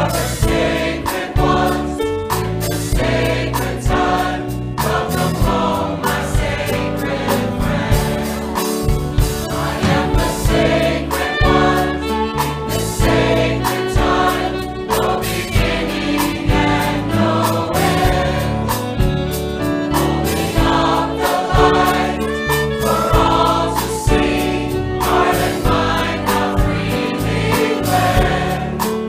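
A gospel-style choir sings a worship song, accompanied by a band with a steady beat.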